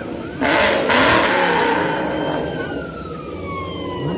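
A passing car revs hard about half a second in, a loud burst of exhaust noise lasting about a second. Then an emergency vehicle's siren winds down in one long, slowly falling tone.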